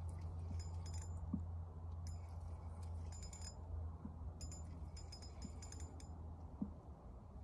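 Fishing reel ticking in short metallic runs as a small fish is reeled in on a light rod, over a steady low hum.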